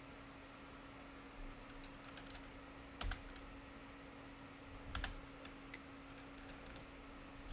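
Faint clicking and tapping of computer keys over a steady low hum, with two louder clicks about three and five seconds in.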